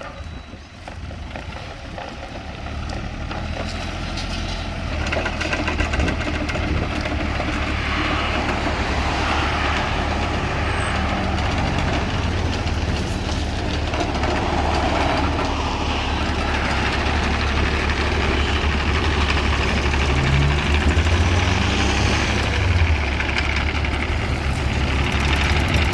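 Diesel engine of a backhoe excavator running, growing louder over the first few seconds, with brief changes in engine pitch around twenty seconds in.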